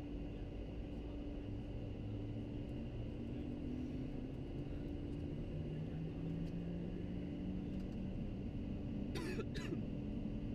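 Business jet cockpit noise during the landing rollout: a steady hum of engines and airflow, with a low tone that slowly rises in pitch through the middle. Two short bursts of hiss come about nine seconds in.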